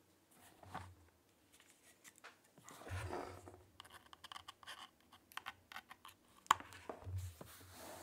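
Typing on a mechanical keyboard with lubed Pewter light-tactile switches on an aluminium plate: irregular key clacks, with a quick run of keystrokes in the middle and one sharper clack about two-thirds of the way through.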